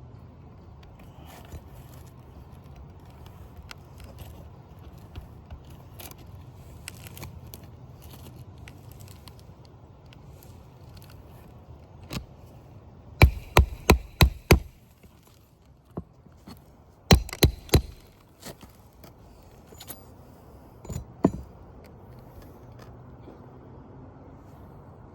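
Hammer driving roofing nails in a shingle repair: a run of about five quick blows, then four more, then two, over a low steady hum.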